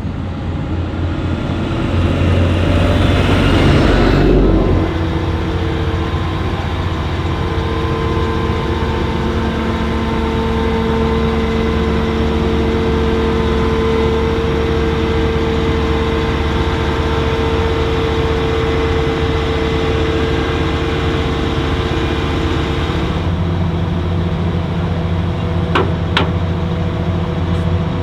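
Heavy farm machinery engines running at a maize harvest. A loud rush of noise in the first few seconds, as if a machine passes close, is followed by a steady drone with a held whine. The sound changes about 23 seconds in, and a couple of sharp clicks come near the end.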